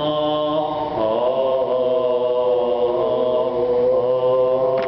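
Byzantine chant in the plagal fourth tone: voices holding long drawn-out notes, with a step in pitch about a second in and then a steady hold.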